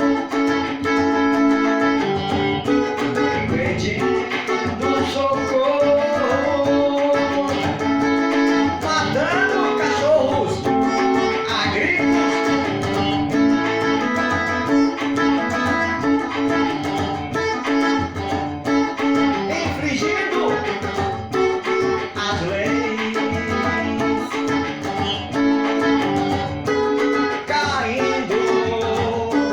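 Guitar music: an instrumental passage of plucked guitar notes that runs steadily without a pause.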